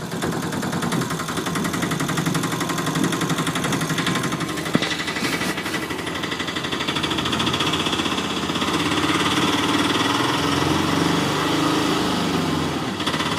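Imitation engine sound for a toy auto-rickshaw being driven along: a steady, rapid putter that wavers a little in pitch.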